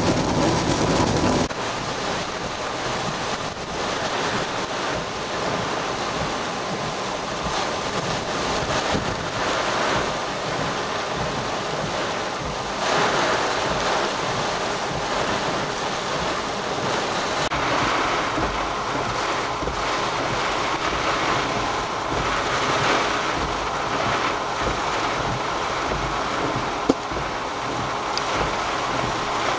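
Steady rushing noise of wind and rain, with wind buffeting the microphone. The noise shifts in level a couple of times, and there is a single sharp click near the end.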